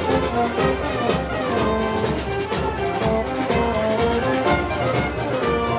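Brass band music, brass instruments carrying a melody over a steady beat of about two strokes a second, in the style of Moros y Cristianos festival music.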